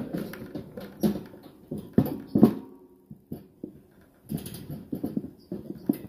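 Pet parakeet giving a series of short, harsh angry calls with pauses between them, busiest at the start and again in the last two seconds.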